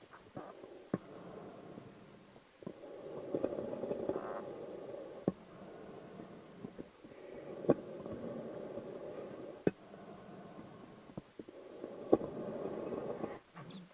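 Scuba diver breathing through a regulator underwater: exhaled bubbles rumble in three bursts about every four to five seconds, with quieter inhalations between them. Scattered sharp clicks are heard throughout.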